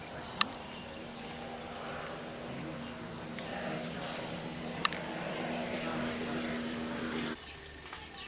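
Open-air ambience with a steady high-pitched insect buzz. A low steady hum stops suddenly about seven seconds in, and two sharp clicks come about half a second and five seconds in.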